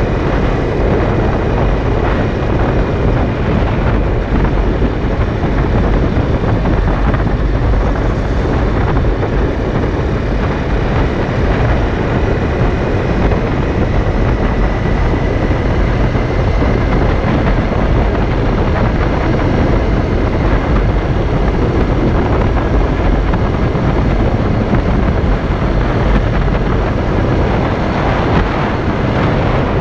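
Honda CRF250L's single-cylinder four-stroke engine cruising at about 70 to 80 km/h, mixed with heavy wind rush on the microphone. The sound stays steady throughout.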